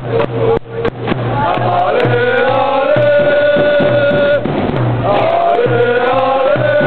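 Singing of a chant-like tune in long held notes over a steady low drum beat, with a brief break about half a second in.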